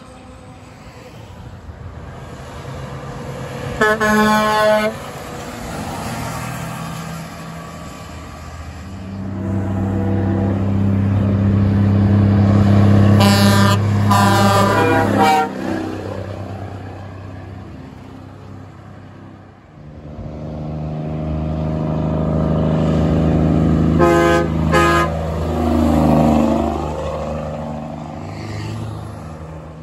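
Big diesel trucks driving past one after another, each engine swelling as it nears and fading as it goes by. Truck horns blow as they pass: one blast about four seconds in, a run of blasts near the middle and two more about two-thirds of the way through.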